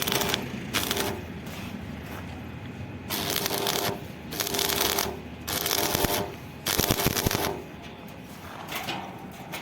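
Arc welding on an iron door hinge: a series of short crackling bursts of the arc, each lasting under a second, separated by brief pauses, as when tacking.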